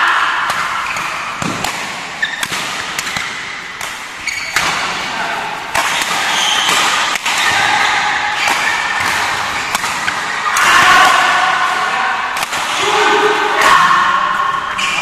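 Badminton rally: rackets striking the shuttlecock in sharp, irregularly spaced smacks, with the hall's echo behind them.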